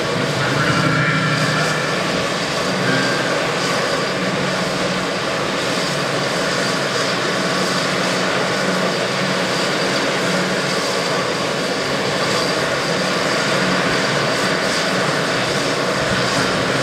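Air ambulance helicopter running on the ground, its turbine and rotor making a steady noise.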